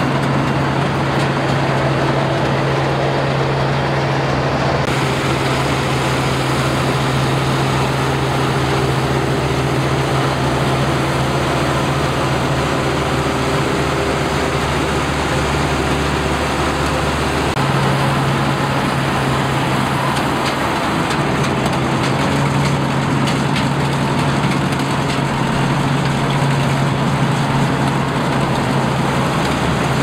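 Zoomlion crawler combine harvester running steadily while cutting rice: a constant engine hum with the clatter and whir of the header and threshing machinery. The tone of the sound shifts slightly about five seconds in and again a little past halfway.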